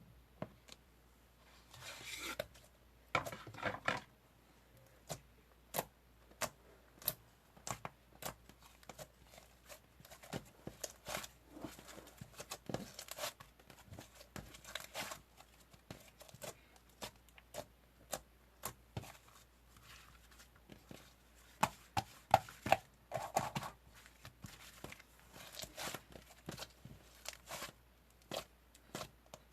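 Irregular sharp clicks and taps, with a few longer rustling or scraping bursts, as of small objects being handled close to the microphone.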